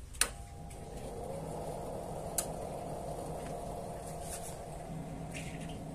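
Power amplifier switched on: a sharp click from its power switch, then a steady hum as the amp comes up and runs idle. Another small click follows about two seconds later.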